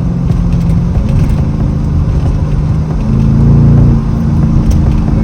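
Chevrolet Camaro SS V8 with a crackle-and-pop tune, running on the road. The engine note steps up and gets louder about three seconds in as the throttle opens, and eases off a second later.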